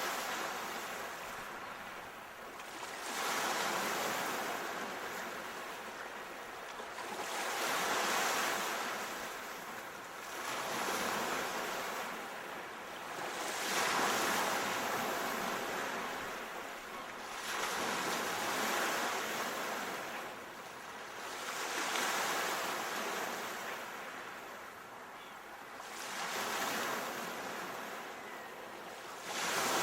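Sea waves washing onto the shore, the surf swelling and fading again about every three to four seconds.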